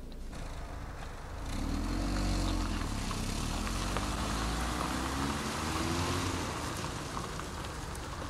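A Volkswagen hatchback's engine running as the car drives along a dirt track, with tyre noise. It grows louder about a second and a half in, and the engine note rises and falls.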